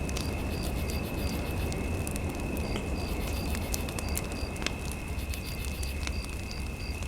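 Fire crackling in a fireplace: irregular sharp pops over a steady low rumble. A steady high electronic tone and faint short beeps run along with it.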